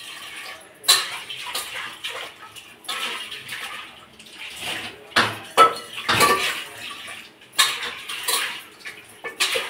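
Water splashing with a steel pot and utensils clattering, in irregular bursts, as dal is handled in the kitchen.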